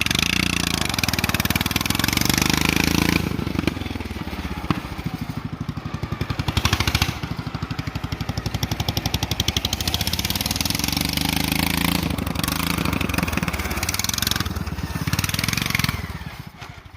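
Racing garden tractor's small engine running hard, revving up and easing off several times under throttle, then cutting off sharply near the end.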